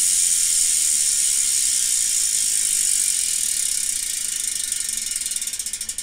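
Freehub of a Retrospec aero bicycle wheel ratcheting as the wheel spins freely: a fast, even run of clicks that slows into separate ticks and fades toward the end as the wheel coasts down.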